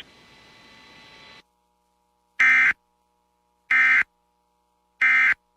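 Emergency Alert System end-of-message data signal: three short, identical buzzing squawks of digital data tones about a second apart, marking the end of the broadcast warning. A faint hiss comes before them.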